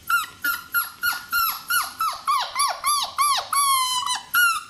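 Beagle puppy whining: a quick string of short, high-pitched cries, each falling in pitch, about three a second, with one longer, steadier cry near the end.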